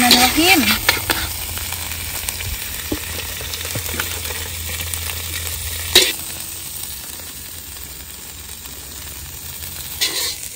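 Metal spatula scraping and knocking against a stainless steel wok as the shredded spicy tuna is scooped out, over a steady sizzle from the hot wok. A sharp clank about six seconds in, and a few more knocks near the end.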